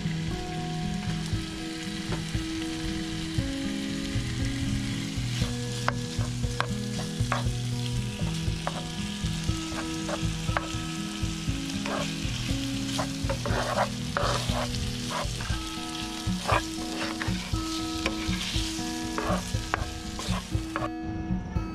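Raw diced chicken sizzling in oil in a non-stick frying pan, with a spatula clicking and scraping against the pan as the pieces are stirred. Background music with a stepping melody plays under it.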